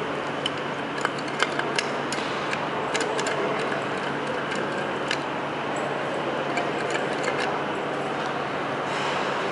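Scattered light clicks over a steady background hum, as an elevator landing call button is pressed repeatedly. The clicks come thickest in the first three seconds, with a few more later.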